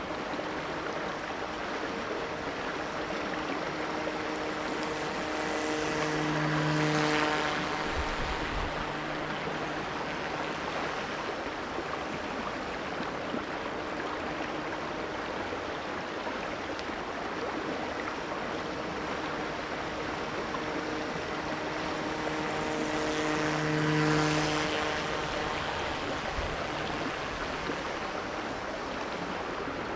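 Battery-electric RC swamp boat's motor and air propeller running with a steady pitched hum, swelling louder twice as the boat comes nearer, over the steady rush of a shallow creek.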